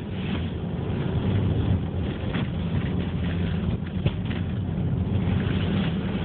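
Subaru Forester driving: steady low engine and road rumble, with a couple of brief knocks about two and four seconds in.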